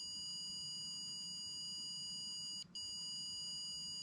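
Steady high-pitched electronic tone from a ghost-hunting device, cutting out briefly about two-thirds of the way through.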